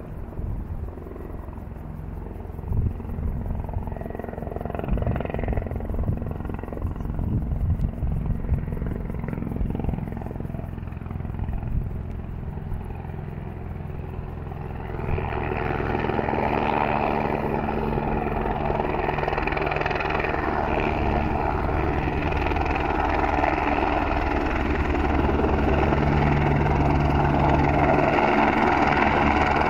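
Helicopter approaching: its rotor and turbine sound comes in about halfway through and grows steadily louder. Before that there is only a low, gusty rumble.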